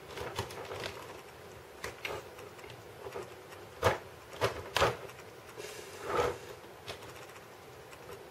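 LEGO Technic Rubik's cube being turned by hand: its plastic pieces and 24-tooth gears click and clack as the faces rotate, in a handful of short knocks, the loudest about four and five seconds in and again a little after six.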